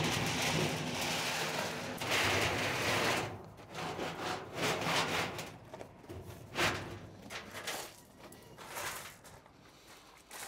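Galvanized steel stock tank being dragged and shoved across a gravel floor: a long grinding scrape for about three seconds, then several shorter scrapes and crunches that grow fainter.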